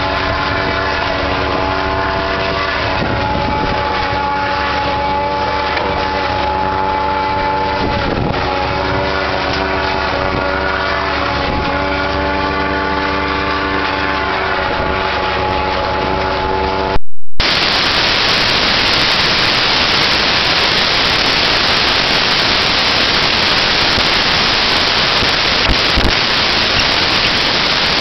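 Tractor and PZ MH 80 single-row forage harvester running steadily at working speed, chopping maize and blowing it into the trailer, with a steady machine whine over the engine. Around two-thirds of the way through the sound drops out briefly with a loud crack, then turns into a loud, even hiss.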